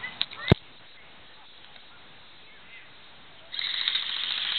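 A single sharp knock about half a second in, then a sudden burst of rapid automatic airsoft rifle fire lasting just over a second near the end.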